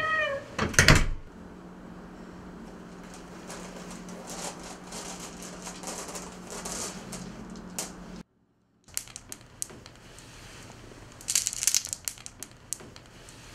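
A short falling squeak and a loud thump just under a second in, then a low steady hum that cuts out briefly past the middle. Near the end, glass marbles click and rattle against one another on a hard floor in a quick cluster of sharp clicks.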